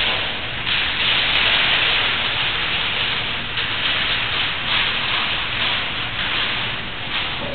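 Continuous crackling hiss of the adhesive backing's release paper being peeled off a flexible solar module and rolled up, swelling and easing in waves.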